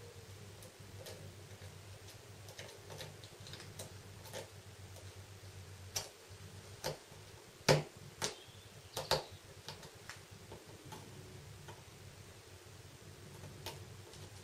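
Faint, irregular clicks and ticks of a small Phillips screwdriver working tiny screws out of a smartphone's plastic bezel. A handful of sharper clicks come about six to nine seconds in, over a low steady hum.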